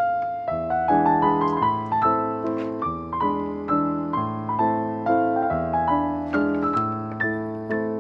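Background piano music: a gentle melody of struck notes over sustained chords, at an even, unhurried pace.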